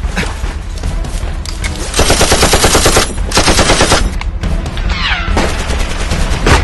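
Automatic machine-gun fire: two long bursts of rapid, evenly spaced shots about two and three seconds in, with scattered single shots around them and a short falling whine about five seconds in.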